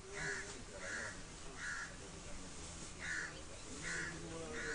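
A crow cawing repeatedly: two runs of three harsh caws, with a short pause between them. Faint voices murmur underneath.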